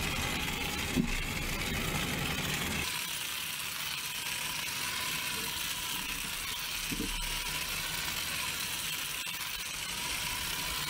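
Small 1.5-volt toy motor of a battery-operated toy helicopter whirring steadily as it drives the main rotor, with a thin steady whine.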